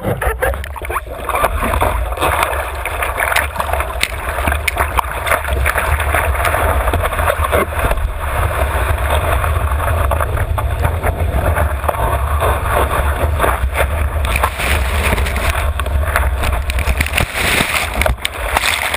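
Rushing water and spray over a surfboard-nose camera's waterproof housing as the board rides a breaking wave, with a steady low rumble and many small splashes. It drops off just before the end.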